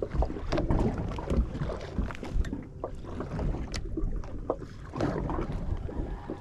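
Sounds aboard a small fishing boat at sea: many scattered knocks and clicks over a continuous wash of water and wind noise.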